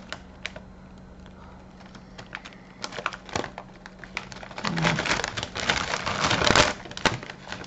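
Crinkling and crackling of a plastic crisp bag being handled, light and scattered at first, then louder and denser about five seconds in as the bag is turned over.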